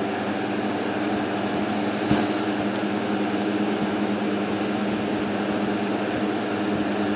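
1958 General Electric twin window fan running steadily on high: an even rush of air over a steady motor hum. A brief click about two seconds in.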